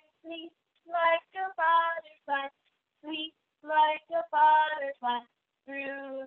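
A woman singing a children's song in short phrases with brief pauses between them.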